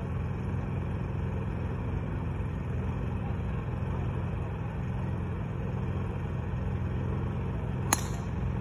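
A golf driver striking the ball off the tee: one sharp hit about eight seconds in, over a steady low background rumble.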